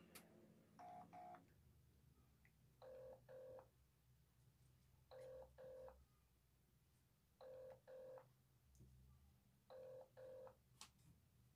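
Telephone ring-back tone of an outgoing mobile call, heard faintly from the phone's earpiece: five double rings ("brr-brr") about every two and a half seconds, the first pair a little higher in pitch, while the call waits to be answered.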